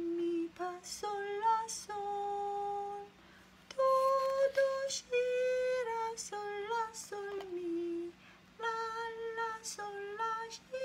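A woman sings solfège note names (mi, mi, fa, sol, la, sol… do, do, si) to a slow melody, one held note per syllable, with short pauses between phrases.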